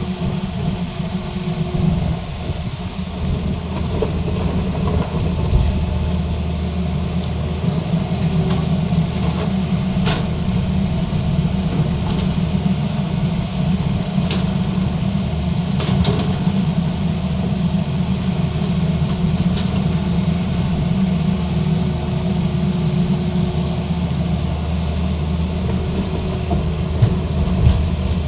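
Tata Hitachi Zaxis crawler excavator's diesel engine running steadily while the machine digs and swings, with a few sharp knocks over it.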